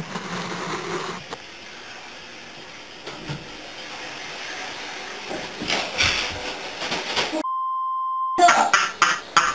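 Quiet room sound with faint rustling, a short noisy burst about six seconds in, then a steady one-second censor bleep at one pitch, with all other sound cut out under it. A few sharp clicks follow near the end.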